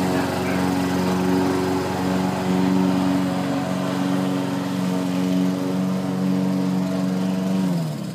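Lawn mower's small petrol engine running steadily, then shutting off near the end, its pitch dropping as it winds down.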